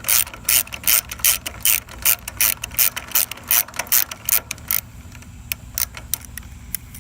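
Socket ratchet clicking in quick back-and-forth strokes, about two to three a second, as a 10 mm bolt on a lawn tractor's starter relay is backed out. About five seconds in, the strokes thin to a few scattered clicks.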